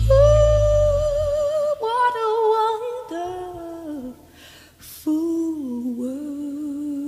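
Background music: a solo voice humming or singing long, wavering held notes over sparse accompaniment, with a brief pause about four seconds in before another long held note.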